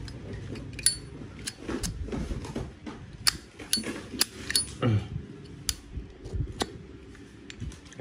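Metal Zippo lighter being handled: an irregular series of sharp metallic clicks and clinks, several ringing briefly.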